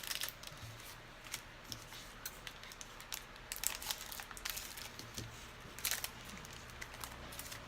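Faint handling of Panini Prizm football trading cards and their pack wrappers: scattered sharp clicks and light crinkling as cards are sorted and flicked.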